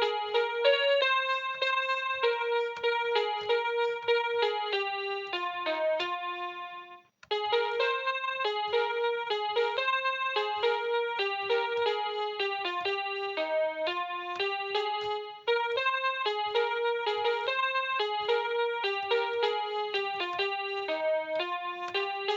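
Electronic keyboard playing a simple single-note melody in a piano-like voice, a note every third to half second. The playing breaks off about seven seconds in and starts again, with another brief break about fifteen seconds in.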